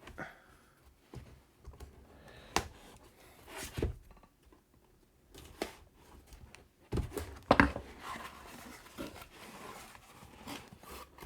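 A parcel being opened by hand: packaging torn and rustled, with scattered knocks and clicks, the loudest cluster about seven to eight seconds in.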